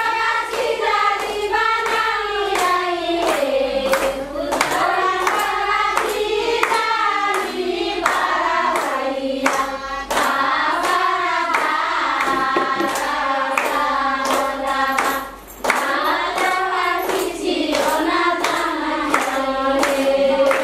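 A group singing a song together, clapping their hands in time at about two claps a second, with a brief break in the singing about three quarters of the way through.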